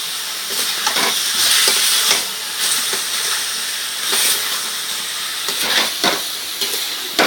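Parboiled elephant foot yam and potato pieces sizzling in hot oil and masala paste in a pan, being stirred, with a few short scrapes and knocks of the spatula against the pan.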